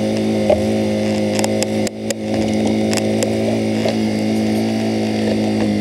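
Deck crane machinery running at a steady pitch, with a few sharp knocks near the start and middle.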